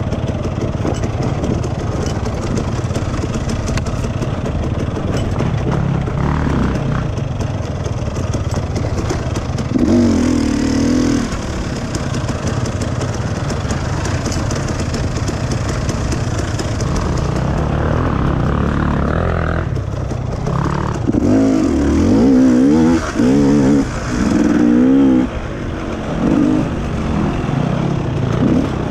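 Motorcycle engine running under way as a steady drone. In the second half the revs swing up and down quickly several times.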